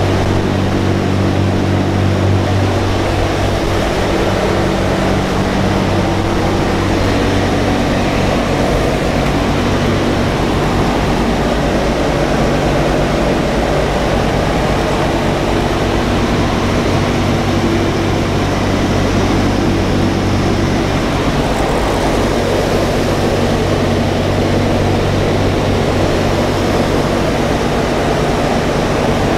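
A B-17 bomber's four Wright R-1820 Cyclone radial engines running steadily in flight, heard from inside the aircraft as a loud, even low hum with a constant rush of air noise.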